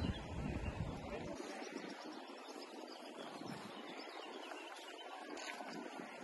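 Outdoor park ambience: a steady faint hiss with faint distant voices, and a low rumble of wind or handling on the microphone for about the first second and a half.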